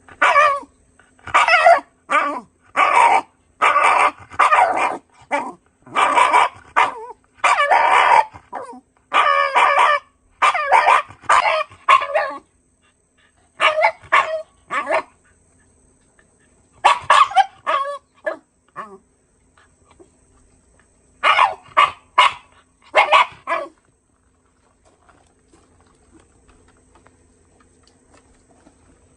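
Shiba Inu barking in quick runs of several barks, about twenty in all, stopping about 24 seconds in.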